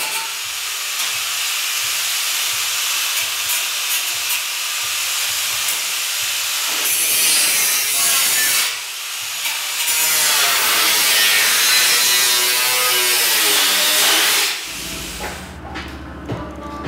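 Angle grinder cutting through the old truck cab's sheet metal. It eases off briefly about halfway, and its pitch then wavers as the wheel bites. The grinding stops suddenly near the end and gives way to a low, steady hum.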